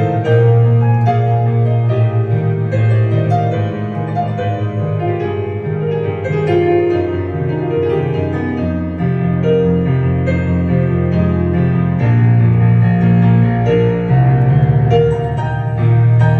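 Yamaha Clavinova digital piano played solo: a melody over full chords and held bass notes.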